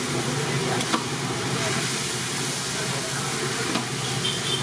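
Steady hiss of a large aluminium idli steamer pot on a gas burner, with a faint knock about a second in as the cloth-lined plate of batter goes into the pot.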